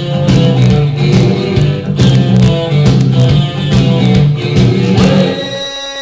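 Music with guitar and a heavy bass line, overlaid with sharp, regular clicks of Cajun spoons played as percussion. Near the end the bass drops out and a single held note carries on.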